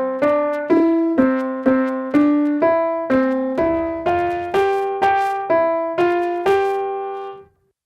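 Piano-like keyboard melody of about fifteen notes, about two a second, each note fading after it is struck and the last one held until it dies away near the end. It is a listening example of music built from the envelope of one sound and the fine structure of another.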